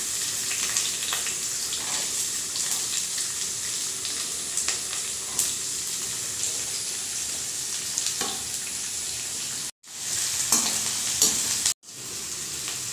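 Chopped onions sizzling as they fry in hot mustard oil in a kadhai, with a perforated metal spatula scraping and clicking against the pan as they are stirred. The sound drops out twice, briefly, near the end.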